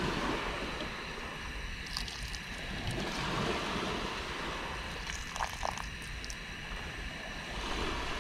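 Portable butane gas stove burning steadily under a pot of fish soup coming to the boil: an even rushing hiss, with a few faint knocks of a ladle against the pot about two and five seconds in.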